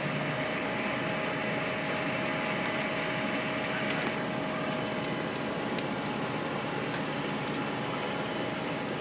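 Fire engine running steadily, a constant mechanical drone with a few held tones, mixed with scattered snaps and crackles from the burning house.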